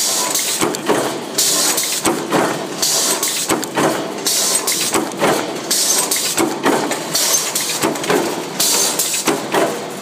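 Automatic stainless steel hinge-rolling press running, its die striking in a quick, fairly even series of metallic knocks, with a short hiss recurring every second or so.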